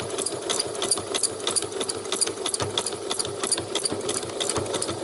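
Domestic sewing machine running steadily on a fine zigzag stitch, couching embroidery threads down onto fabric: a rapid, even ticking of the needle.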